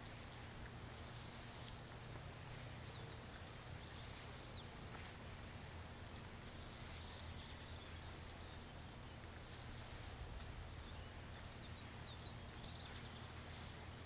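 Faint outdoor ambience: a high chirring chorus that swells and fades every two to three seconds, with a few short chirps, over a low steady rumble.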